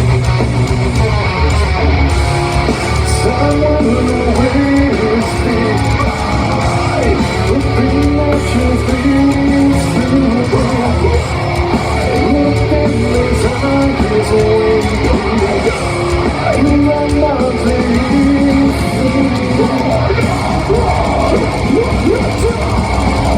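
Heavy metal band playing live: distorted electric guitars, bass and drums with sung vocals over them, dense and loud throughout.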